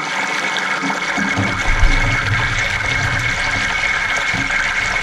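Kingfish steaks sizzling in hot oil in a frying pan, a steady crackling hiss. From about a second in, a few low bumps come over it as the steaks are shifted with metal tongs in the pan.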